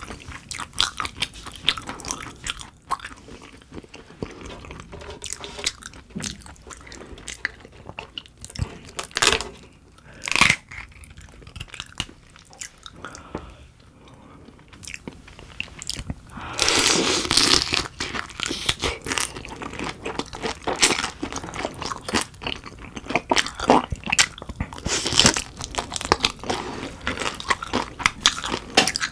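Close-miked chewing and crunching of a butter-grilled dohwa shrimp head, the shell cracking between the teeth with wet chewing in between. A longer run of loud crunching comes about 17 seconds in.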